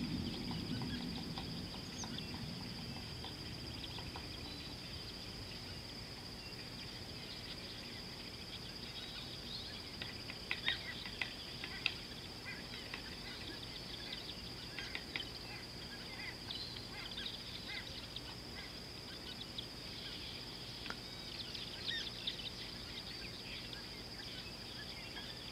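Outdoor bush ambience: a steady high-pitched insect drone with scattered short bird chirps and calls, which come thickest about ten seconds in and again near the end. A low rumble fades out over the first few seconds.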